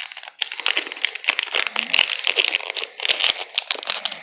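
Small toy blind bag being torn open and handled, crinkling with a dense run of crisp crackles.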